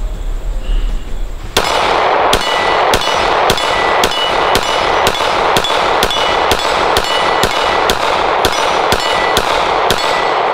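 9mm Glock 17 pistol fired in rapid, even succession, about two shots a second, starting about a second and a half in. Each shot is followed by a short metallic ring from the painted steel target being hit.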